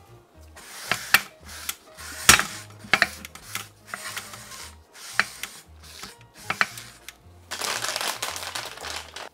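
Cooking utensil knocking and scraping in a frying pan in short, sharp strokes, with a longer stretch of scraping near the end.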